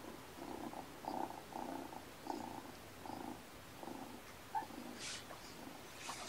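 A cat purring, the purr coming in short, even pulses about two or three times a second, with a brief rustle near the end.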